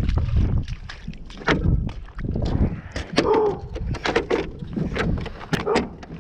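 A metal-framed road barricade with a striped wooden panel being grabbed and moved by hand: irregular clacks, knocks and rattles of its legs and boards, with a short scrape about three seconds in.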